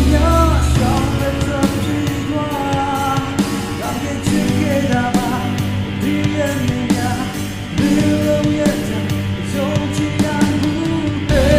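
A Burmese-language song: a man sings the melody over a backing track programmed in the FL Studio Mobile app. The deep bass drops out about a second in and comes back near the end.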